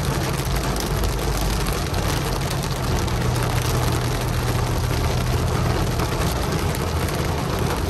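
Heavy rain pelting a car's windshield and roof, heard from inside the cabin, over the steady low hum of the car's engine.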